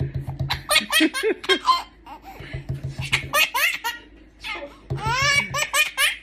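A five-month-old baby's belly laughs and giggles, set off by quick runs of knocking on a desk. The knocking comes three times, and the baby laughs after each run.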